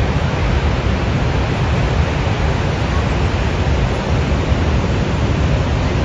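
Loud, steady rush of the Teesta River in flash flood: a torrent of muddy floodwater churning past at full spate.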